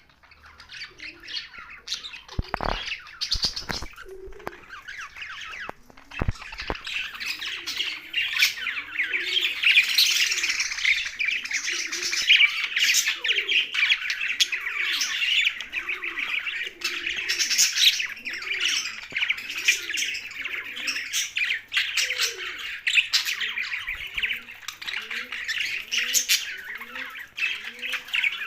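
Young budgerigars chattering and squawking in a dense, continuous stream. From a few seconds in, a lower call repeats a little over once a second, and there are a few sharp knocks early on.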